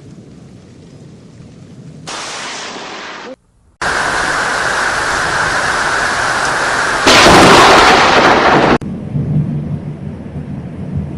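Thunderstorm noise from spliced clips: a low rumble, then abrupt jumps to loud, steady rain-and-wind roar, broken once by a brief dropout at a cut. The loudest stretch is about seven to nine seconds in, before it falls back to a low rumble.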